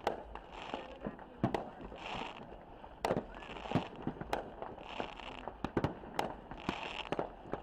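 Fireworks going off: an irregular string of sharp bangs and pops, some close together, with short hissing bursts about every second and a half.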